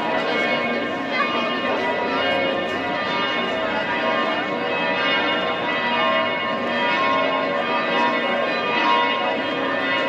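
Two of St. Stephen's Cathedral's church bells ringing together, their strokes overlapping into a continuous, steady peal.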